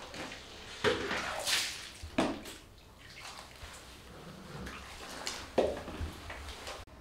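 Bath water sloshing and splashing from a plastic bucket and mug, with a few sharp knocks, while a golden retriever's wet, shampooed coat is rubbed by hand.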